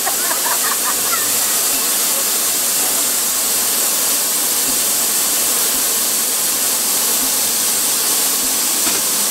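Steady hiss from an SBF Turbo Drop tower ride as its gondola of seated riders comes down toward the ground. A few short cries in the first second.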